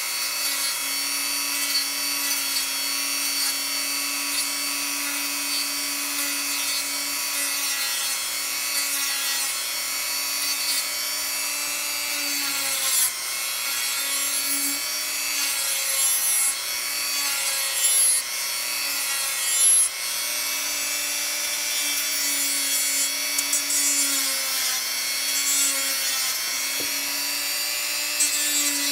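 Hyper Tough 1.5 amp rotary tool running steadily, its accessory sanding against a workpiece with a continuous rasp over the motor's hum. The pitch dips briefly a few times, with short louder scrapes around the middle.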